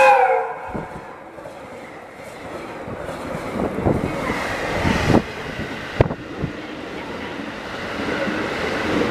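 The last of a 789 series limited express electric train's horn sliding down in pitch as it passes and cutting off, followed by the train rushing through the station at speed, wheels knocking sharply over rail joints several times, then a noisy rush of air and blown snow in its wake.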